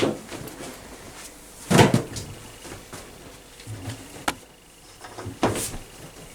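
Laundry tumbling in a domestic laundry machine's drum: irregular dull thuds and knocks every second or two, the heaviest about two seconds in, with a sharp click a little past the middle.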